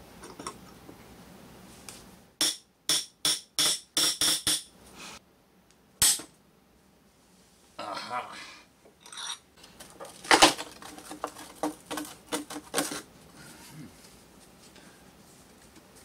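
Hand tools working on the metal cover bolts of an electric unicycle: a quick run of about eight ringing metal clicks, then a single sharp ting, then a scatter of clicks and knocks as the bolts are undone.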